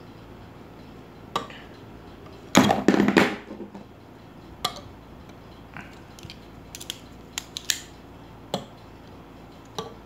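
Metal clinks and clatter of a Leatherman Charge TTI multi-tool being handled and set down on a scale to be weighed: a louder rattle about two and a half seconds in, then a string of short, sharp clicks.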